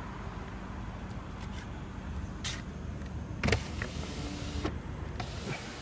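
Rear power window of a 2014 Lexus LS 460 being run by its motor, a low steady hum, with a couple of sharp clicks midway.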